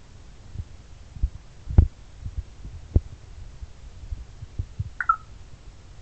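Irregular soft low thumps, the two loudest about two and three seconds in, then a short falling chirp from an African grey parrot about five seconds in.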